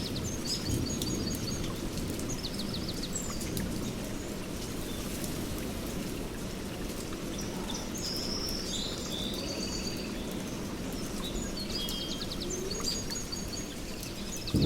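Steady heavy rain falling, with birds calling through it in short repeated chirps and trills. A thunder rumble starts right at the end.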